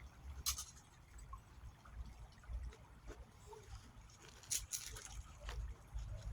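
Faint trickle of creek water, with low, uneven wind rumble on the microphone and two brief sharp sounds, about half a second and four and a half seconds in.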